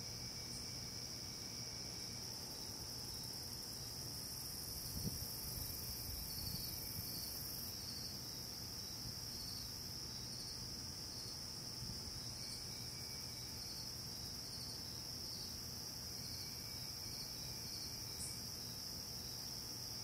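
A steady chorus of night insects: one continuous high-pitched trill that keeps on without a break.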